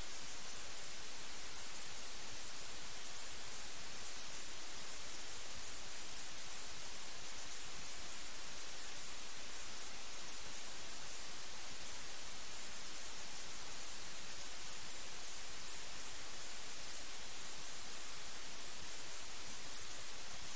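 Steady, loud hiss of static with nothing else audible: the film's soundtrack muted for music clearance and left as plain noise.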